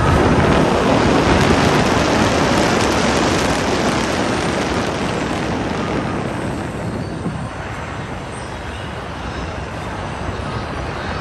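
Loud rushing wind of a simulated flight, surging at the start and easing off gradually after about six seconds.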